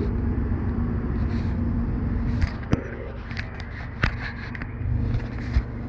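Steady low wind rumble on the camera microphone, with sharp knocks and rubbing between about two and five seconds in as a hand handles the camera.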